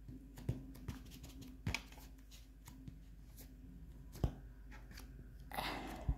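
Hands handling and kneading modelling clay on a tabletop: scattered light taps and knocks, one sharper knock about four seconds in, and a short rustle near the end.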